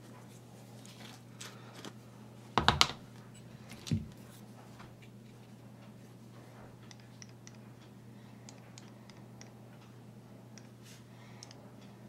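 Small paint pots being handled, opened and set down on a cutting mat: a quick cluster of knocks about three seconds in and one more a second later, then faint light ticks as a wooden stick dips into the silver paint and dabs it on. A low steady hum runs underneath.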